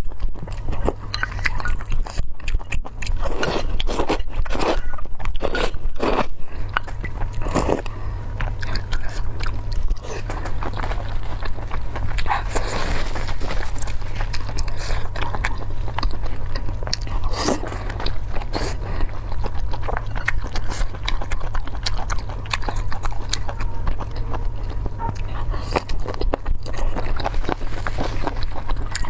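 Close-miked eating: biting and chewing with many sharp, crunchy clicks and smacks, over a steady low hum.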